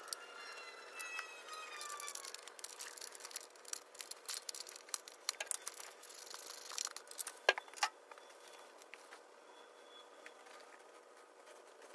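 Hand tools and metal parts clicking, clinking and rattling during engine reassembly: scattered small knocks, the loudest about seven and a half seconds in, with a short falling tone in the first two seconds.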